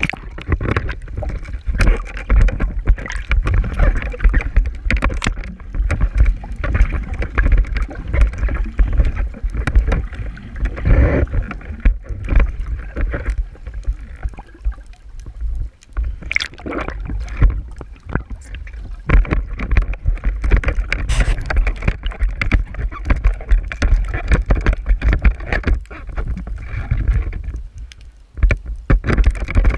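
Water sloshing and gurgling around the microphone, with a rumble and crackle throughout.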